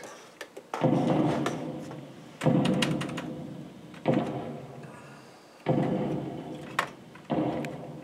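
Amiga Boing Ball demo's bounce sound: a sampled thud with a short fading ring, heard five times at even intervals of about one and a half seconds as the ball bounces. A sharp click comes between the last two bounces.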